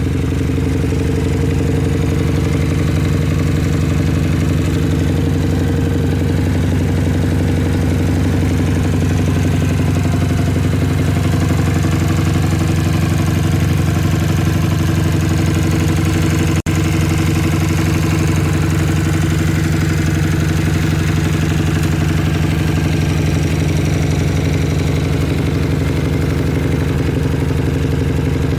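Small single-cylinder sport motorcycle idling steadily through a titanium Scorpion Serket Taper racing exhaust canister, a low, even engine note with no revving; the sound cuts out for an instant about 17 seconds in.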